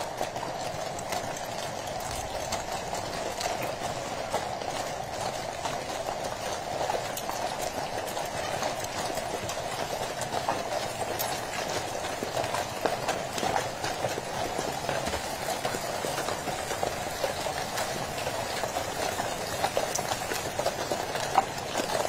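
Hooves of a team of carriage horses clip-clopping steadily on the road as they pull a horse-drawn state coach, over the continuous rumble of the coach's wheels.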